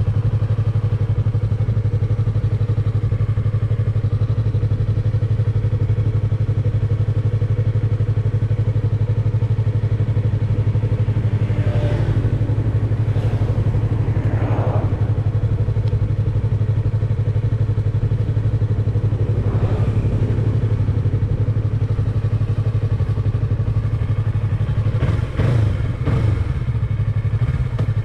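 A 2017 Yamaha YZF-R3 motorcycle engine running steadily, with wind noise on the microphone.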